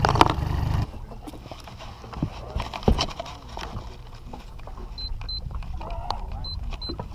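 Mercury outboard motor idling with its top cowling off, cut off abruptly about a second in. After that, quiet on-the-water ambience with a few soft knocks and two pairs of short, high beeps near the end.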